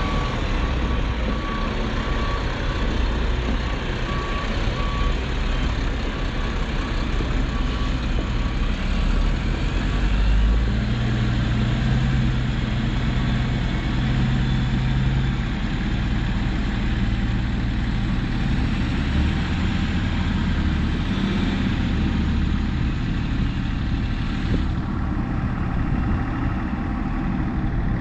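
Diesel engine of heavy earthmoving equipment running steadily, with a backup beeper sounding in short beeps for the first few seconds.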